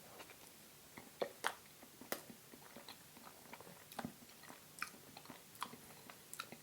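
Close-miked mouth sounds of a person chewing vegan pumpkin spice cheesecake: irregular soft clicks and smacks.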